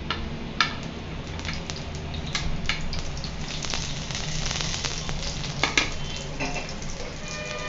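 Chopped pieces frying in hot oil in a pan, with a steady sizzle and a few sharp clicks of stirring.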